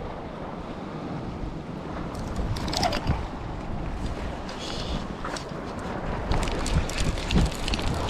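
Wind buffeting the microphone over the wash of sea surf, with a few scattered clicks and rattles.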